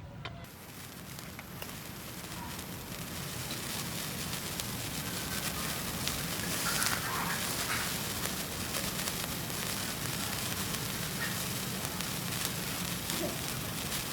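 A large mass of burning matches hissing and crackling, growing louder over the first several seconds and then holding steady.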